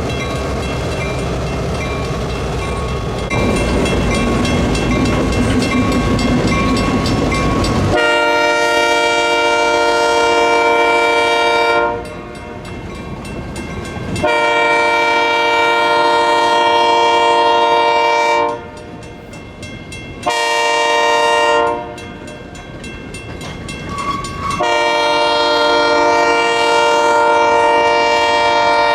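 Diesel locomotive rumbling past with rail clatter, then its horn sounding long, long, short, long: the grade-crossing warning signal.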